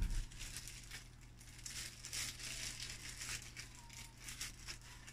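Clear plastic bag crinkling and rustling in the hands as a graded card slab is unwrapped, with a sharp knock at the very start.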